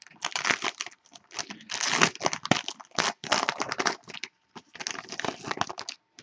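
A wrapper being handled and opened to get at a baseball card box topper, crinkling and tearing in bursts with short pauses.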